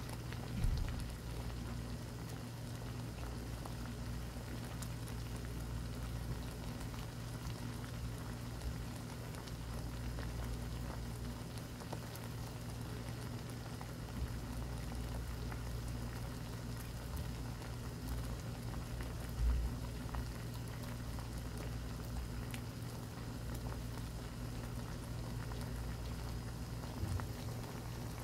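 Pot of doenjang soup with bangpung greens at a rolling boil: steady bubbling and popping over a low steady hum, with a couple of brief low thumps.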